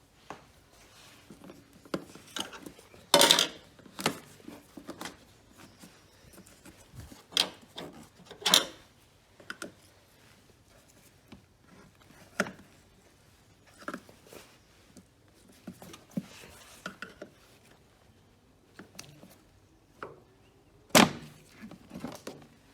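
Irregular clicks, knocks and rattles of hands and tools working on parts under a car's bonnet during disassembly, with the sharpest knocks about three, eight and a half and twenty-one seconds in.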